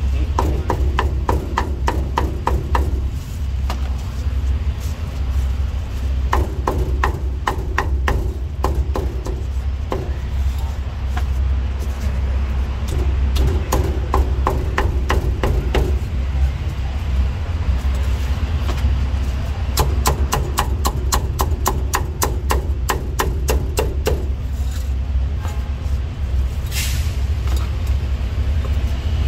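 Meat cleaver chopping roast and braised meat on a thick round wooden chopping block: quick runs of sharp strokes, several a second, in four bursts of a few seconds with short pauses between. A steady low hum runs underneath.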